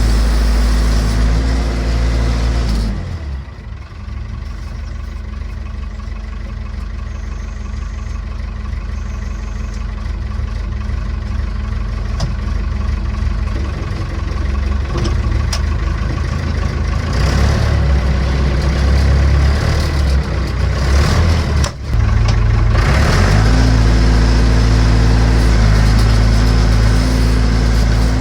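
Massey Ferguson BX 50 backhoe's engine running. It runs at a steady note, then drops to a lower, uneven sound about three seconds in, and comes back up to the steady note a little before the end.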